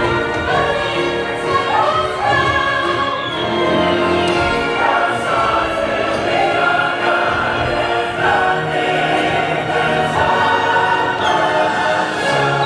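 Orchestral show music with a choir singing, playing steadily over the ride's sound system. A falling whistle-like glide comes about three seconds in and again near the end.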